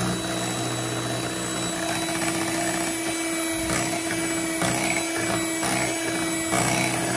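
Electric hand mixer running steadily on high speed, its twin beaters whirring through thick cake batter with a constant motor hum.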